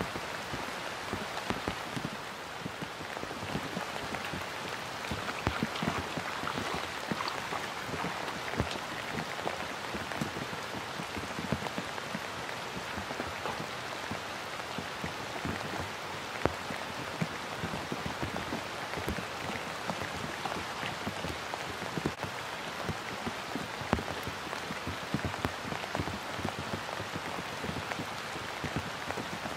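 Steady rain falling on open water and grass: a dense, even hiss dotted with frequent sharp drop ticks.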